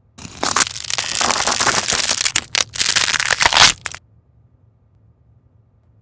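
Wooden pencil tip crunching and crackling as steel cutter blades close through the wood and lead. It runs for nearly four seconds with a couple of brief breaks, then stops suddenly.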